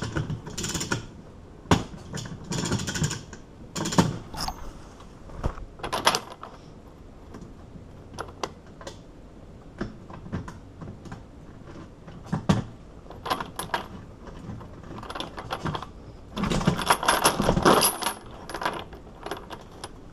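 Scattered metallic clicks, clinks and knocks as a steel padlock and bolt cutters are handled, with a denser stretch of rattling clatter near the end.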